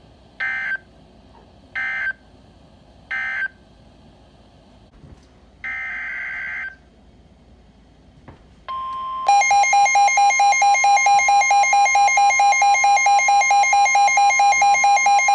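NOAA Weather Radio alert signalling: three short screeching digital data bursts about a second apart, marking the end of one message, then a longer one-second data burst heading the next alert. Past the middle the steady 1050 Hz weather-radio warning alarm tone starts, joined half a second later by a loud, rapidly pulsing electronic alarm beep.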